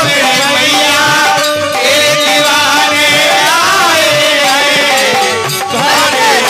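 Live Indian folk music: a male voice singing over harmonium and the bright, plucked melody of an Indian banjo (bulbul tarang), with a drum keeping a steady beat underneath.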